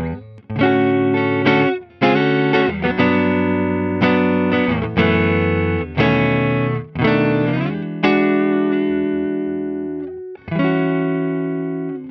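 Fender Stratocaster American Standard electric guitar on its neck pickup, played with a clean tone through an amp-simulator: chords struck about once a second and left to ring, with a longer sustained chord near the end.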